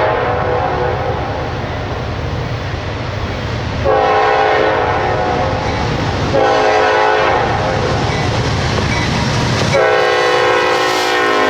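Locomotive multi-chime air horn blowing a chord in repeated blasts: one fading early on, new blasts at about 4 and 6.5 seconds, and a long one from about 10 seconds on. The train runs underneath with a steady low rumble.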